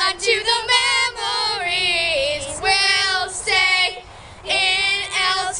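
A group of young girls singing together, phrases of held notes broken by short breaths, the longest gap about four seconds in.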